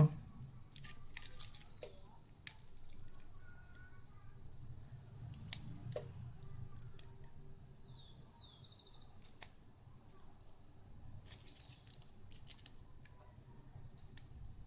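Faint scattered clicks and taps from handling small tools and a device, with short, high, falling bird chirps in the background.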